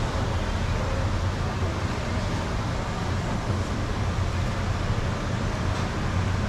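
Steady low hum under an even rush of background noise, with no distinct knife strokes.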